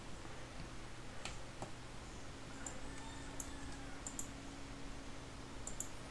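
Computer mouse clicking a few times, single clicks and quick pairs, over a faint steady hum.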